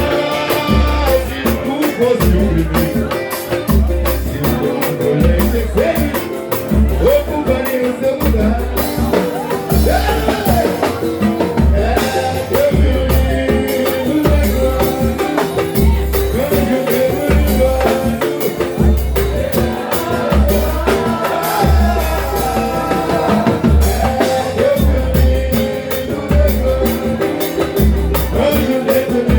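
Brazilian music playing: a voice singing over a steady beat of drums and bass.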